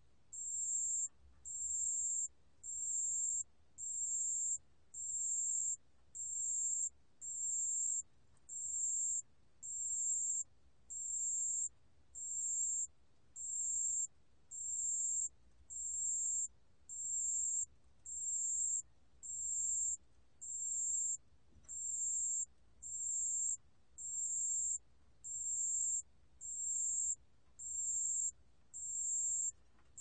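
A 담색방울벌레 bell cricket singing at 28 °C: very high-pitched chirps, each about half a second long, repeating evenly about once a second.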